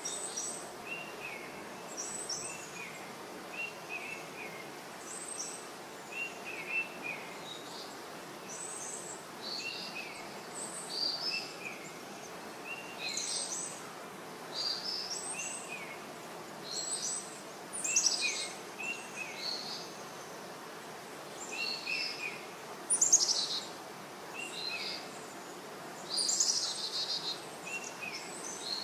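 Small birds chirping and singing, short calls repeated every second or two, some falling quickly in pitch, over a steady background hiss.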